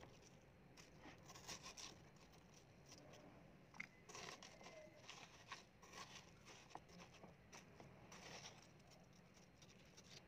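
Faint scraping and crunching of a metal spoon scooping flesh out of a halved watermelon, in short irregular strokes.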